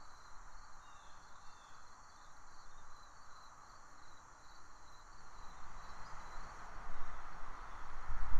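Outdoor ambience: a steady hiss with short, high chirps repeating over and over, and a low buffeting rumble that grows louder in the last couple of seconds.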